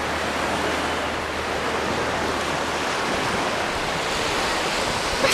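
Steady wash of ocean surf on the shore, mixed with wind on an unshielded camera microphone.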